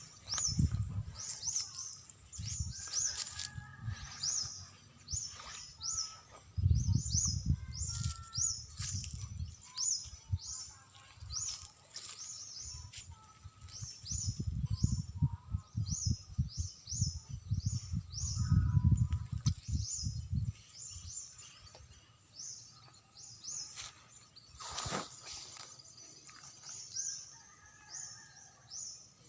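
A bird chirping over and over, short falling high-pitched notes about one and a half a second, with bursts of low rumble in between.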